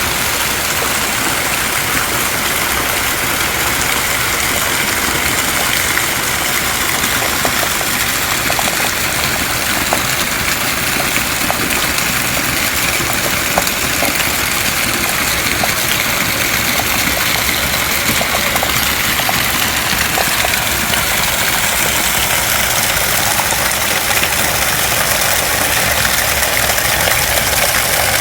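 Heavy rain falling in a steady downpour, with a continuous rush of running water.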